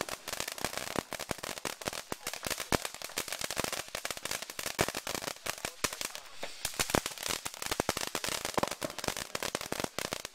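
Ground fountain firework spraying sparks: a steady hiss under a dense, rapid crackle of small pops. The crackling thins briefly about six seconds in, then picks up again.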